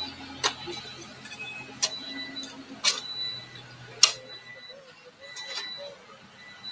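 Metal shovel blades striking and scraping into a mound of stony, gravelly earth: about five sharp clinks roughly a second apart, some with a brief metallic ring, the loudest about four seconds in.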